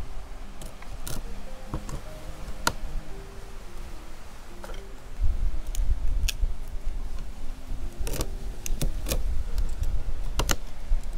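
Kitchen knife clicking and tapping against a wooden cutting board and cracking spiny lobster shell as the legs are cut apart, in sharp irregular clicks with a quick cluster near the end. Wind rumbles on the microphone from about five seconds in.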